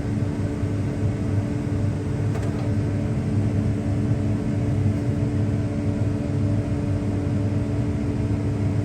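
New Holland combine harvester running steadily while cutting wheat, heard from inside the cab: an even low drone with a constant hum.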